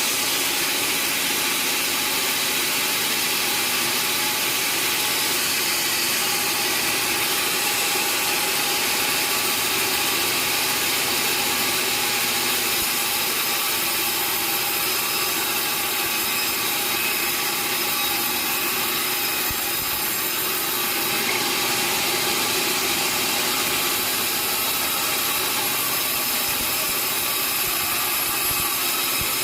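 Sawmill saw and its motor running steadily, a continuous machine sound with a steady whine.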